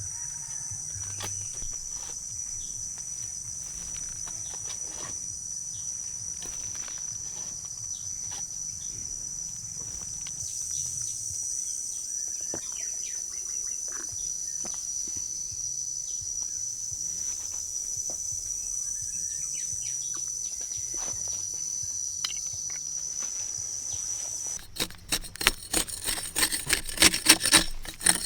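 Insects trill steadily at a high pitch, with scattered faint knocks. About three seconds from the end, a rapid, rhythmic scraping or rasping starts and is louder than the insects.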